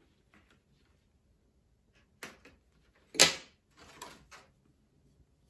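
Hands working a fashion doll free of its plastic and cardboard box packaging: scattered sharp plastic clicks and snaps, the loudest about three seconds in, with short pauses between.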